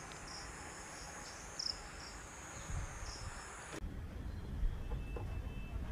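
Faint outdoor background: a soft hiss with short, irregular high chirps like insects, which stop abruptly a little under four seconds in; a low rumble comes in during the second half.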